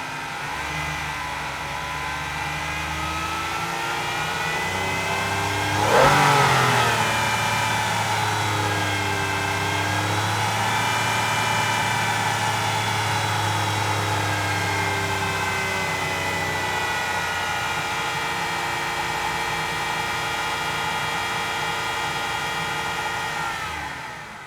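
Aston Martin engine running, its pitch drifting slightly up and down. About six seconds in there is a sudden loud burst, after which the engine runs at a slightly higher pitch before fading out at the end.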